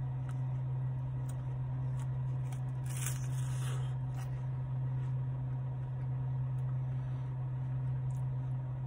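Mouth sounds of eating a soft-serve ice cream cone over a steady low hum in a car cabin: a short, noisy bite about three seconds in, and faint clicks of chewing.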